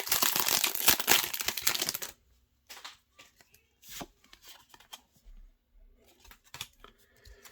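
A foil Pokémon booster pack wrapper being torn open and crinkled for about two seconds, followed by faint ticks and rustles of cards being handled.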